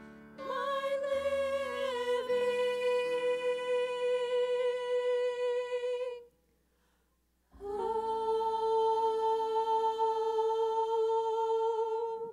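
Women's voices singing two long held notes at the same pitch over a soft accompaniment, separated by a pause of about a second and a half: the close of a worship song.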